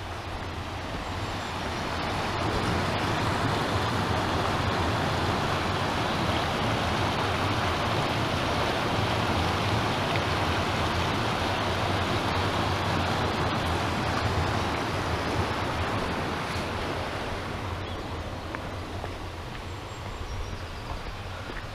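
Shallow rocky stream rushing over stones below a bridge, a steady hiss of water that swells after a couple of seconds and fades again over the last few seconds.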